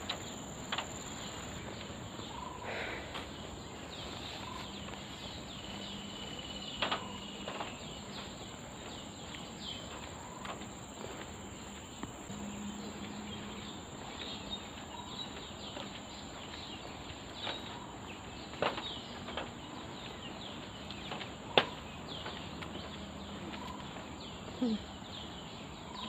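Forest ambience: a steady high-pitched insect drone with scattered short bird chirps, and a few sharp clicks, the loudest about 21 seconds in.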